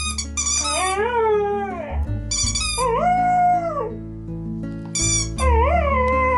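Border collie 'singing': three long howls, the first falling in pitch, the second held level, the third wavering, with short high whines between them. Under them runs background music with steady low notes.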